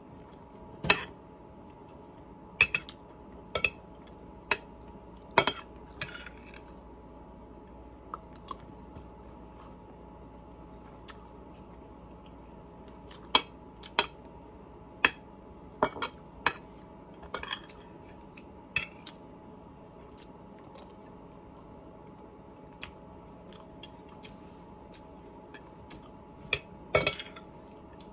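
Metal spoon clinking and scraping against a plate as food is scooped up, in scattered sharp clicks with long gaps between them. A faint steady hum sits underneath.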